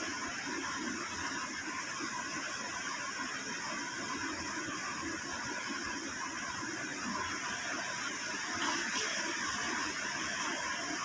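Steady hissing background noise with no distinct event.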